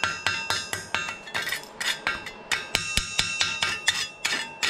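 Chipping hammer tapping slag off a fresh flux-core weld bead on stainless steel pipe and gusset, in rapid taps about four or five a second. The metal rings after each tap.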